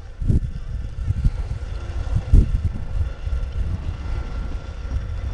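Irregular low rumble of wind buffeting a camcorder microphone, surging in gusts, the strongest about two and a half seconds in.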